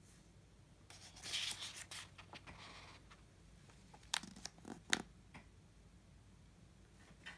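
A picture-book page being turned by hand: a paper rustle and swish lasting about two seconds, then a few sharp clicks about four to five seconds in.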